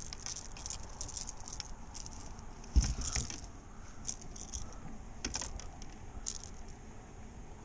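Landing net with a caught fish lifted out of the water onto a kayak: water pattering off the mesh, one thump about three seconds in, then light clicking and jangling as the fish is handled and the hooked lure worked free.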